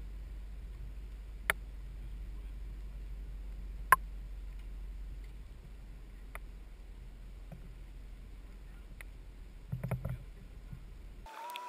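Distant house fire: sharp pops from the burning structure about one and a half and four seconds in, fainter scattered ticks, and a short run of crackling near the end, over a steady low rumble. A wavering tone starts just before the end.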